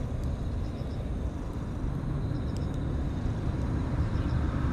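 Steady low outdoor rumble with a few faint, short high chirps in small groups.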